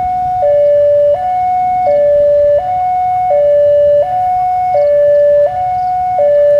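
Two-tone electronic level-crossing warning alarm, warning of an approaching train. It switches back and forth evenly between a higher and a slightly lower tone, each held about 0.7 seconds.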